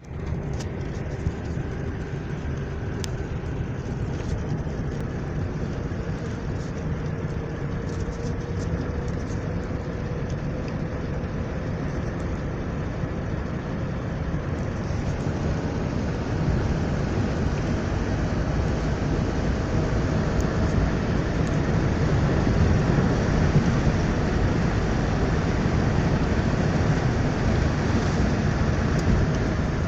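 Car driving along a road: steady engine and tyre noise, growing louder about halfway through.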